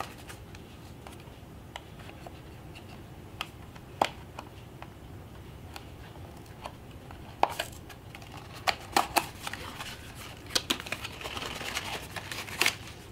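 Hands handling and opening a small cardboard box of accessories: sparse light clicks and taps, growing busier from about halfway with cardboard and packaging rustling, over a faint low hum.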